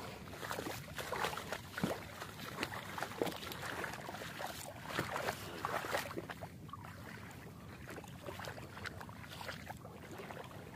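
Irregular splashing and sloshing of feet wading through shallow river water.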